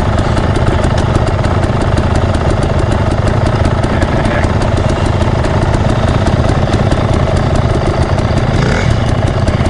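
Dirt bike engine idling steadily, heard close up from its own handlebars.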